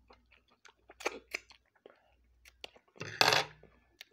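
A metal fork clinking against a plate a few times, with a longer, louder clatter about three seconds in.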